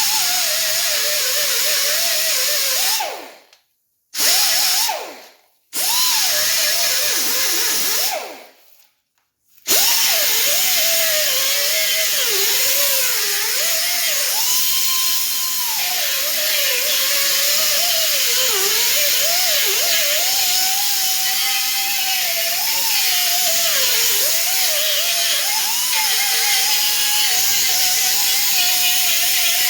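Power tool spinning a wire brush against the inside of a tire, cleaning the area around the puncture before a patch goes on. It runs in three short bursts in the first several seconds, then steadily, its pitch wavering up and down as it works.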